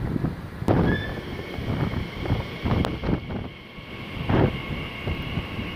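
Class 345 electric multiple unit pulling in alongside the platform, a steady high whine setting in about a second in. Wind buffets the microphone throughout, giving irregular low thumps that are the loudest part.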